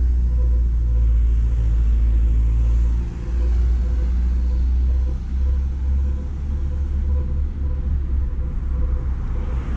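Steady, loud low rumble of city street ambience with traffic noise, swelling near the end.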